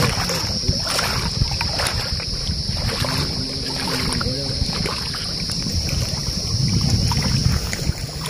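Outdoor lakeside ambience: an uneven low rumble under a steady high-pitched hiss.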